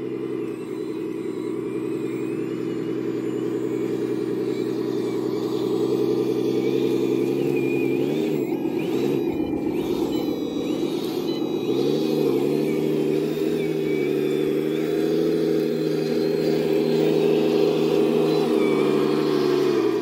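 1/14-scale RC articulated dump truck driving up and past, its diesel-engine sound running steadily and growing louder as it nears. The engine pitch wavers up and down a few times midway.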